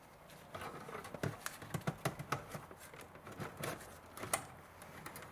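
Scattered light clicks and knocks of plastic parts being handled: a car radio and its wiring harness connectors being plugged together and moved into place.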